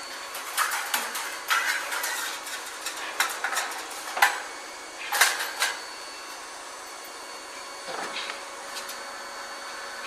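Long steel band saw blade clattering and rattling as it is lifted and fitted onto a band mill's wheel: a run of sharp metallic knocks and rattles over about five seconds, then only a faint steady machine hum.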